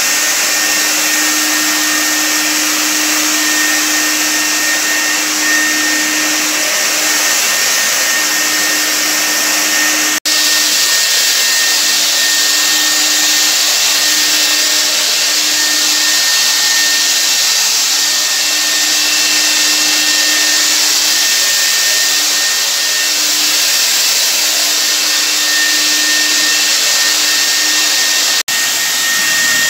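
Handheld electric cold fogger running steadily: a loud rushing blower hiss over a low motor hum as it sprays disinfectant mist. The sound breaks off for an instant twice, about ten seconds in and near the end.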